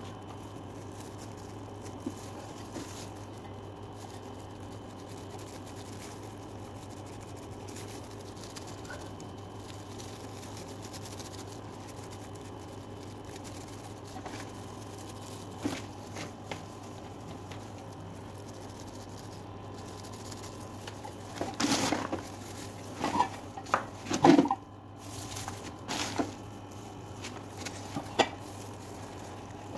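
A steady low hum, with a cluster of sharp knocks and taps from objects being handled about two thirds of the way through, and a couple of single taps either side of it.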